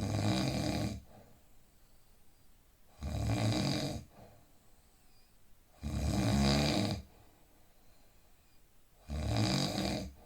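A person in deep sleep snoring: four snores about three seconds apart, each lasting about a second.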